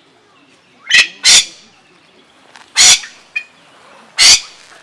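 A bird squawking loudly in four short, harsh calls: two close together about a second in, one just before three seconds, and one near the end.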